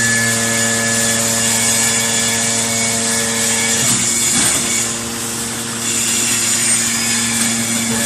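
Hydraulic power unit of a metal-chip baler running with a steady hum and whine as the press ram moves. About four seconds in the whine breaks off and the sound dips for roughly two seconds, then the same steady whine resumes.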